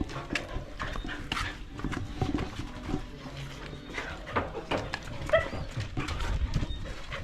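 Short animal calls among scattered knocks and clatter.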